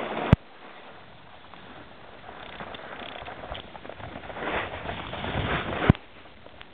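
Snowboard sliding and carving over snow, a scraping hiss that swells and fades, with wind on the microphone. Two sharp clicks, one just after the start and one near the end, each followed by a sudden drop in the sound.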